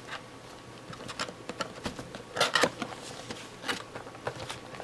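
Packaging of a camera-lens box being handled: short, irregular rustles and scrapes, with a few louder ones past the middle.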